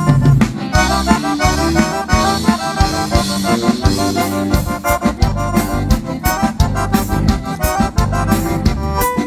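Instrumental break of a gaúcho dance song: an accordion plays a fast melody over bass and a steady drum beat.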